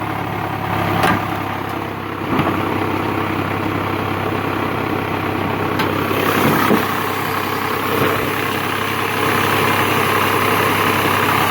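Mazda Xedos 6 engine idling steadily, with no vibration or shaking.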